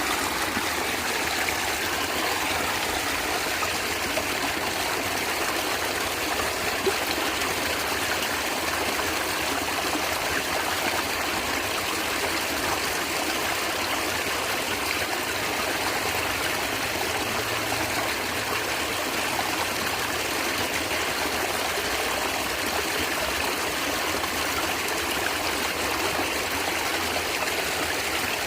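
A small stream of water running and gurgling, a steady, even rush of flowing water.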